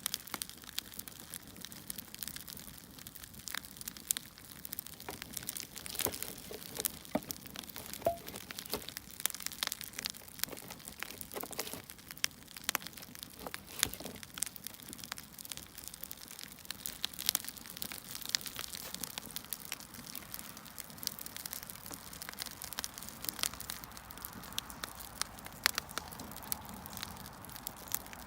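Firewood burning: irregular sharp crackles and pops over a soft, steady hiss.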